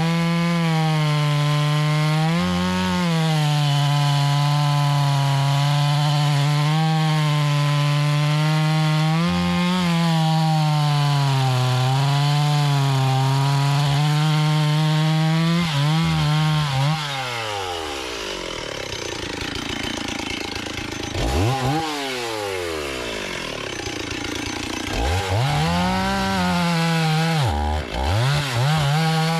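Two-stroke chainsaw running at high, steady speed, cutting wood, with slight dips in pitch. From about sixteen seconds in, the engine note repeatedly drops and climbs again as the throttle is let off and opened.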